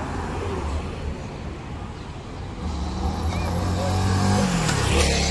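Street traffic passing. About three seconds in a sport motorcycle rides by, its engine note climbing and then dropping as it passes, loudest near the end.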